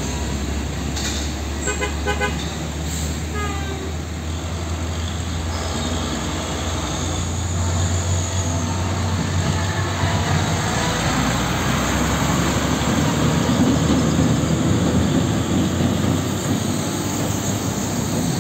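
Diesel tractor-trailer hauling a shipping container pulls through a roundabout and passes close by, its engine rumble growing louder to a peak about two thirds of the way through. A quick run of short beeps sounds about two seconds in.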